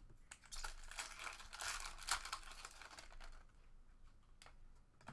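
Foil wrapper of a hockey trading-card pack crinkling and tearing as it is ripped open, for about three seconds, then a single soft tap as the cards are handled near the end.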